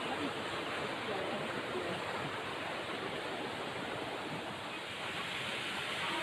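Steady rushing of a waterfall, an even wash of falling water with faint voices under it.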